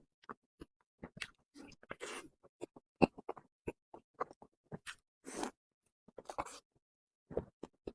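Close-miked eating of a towel roll cake (a rolled crepe cake): irregular short mouth clicks and smacks with gaps between them, and a few longer noisy stretches about two seconds in and again around five and six seconds in.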